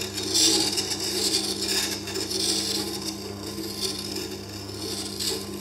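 Tormek grindstone running with a steady motor hum while a steel bowl gouge held in a jig is ground on the stone, giving a grinding hiss that swells and eases as the bevel is worked.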